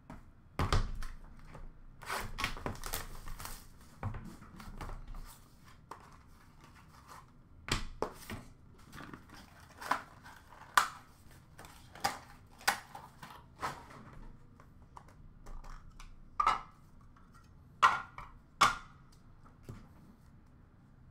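Trading cards, clear plastic card cases and a cardboard box being handled on a counter: scattered sharp clicks and taps with short rustles of card and packaging.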